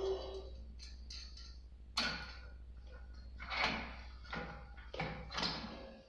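A series of knocks and clanks, about six in a few seconds, the first with a short ring.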